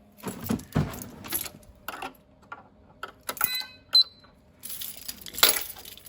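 Handling and clattering noises: a string of irregular knocks and rattles, with a couple of short, ringing metallic clinks about three and a half to four seconds in and a louder clatter about five and a half seconds in.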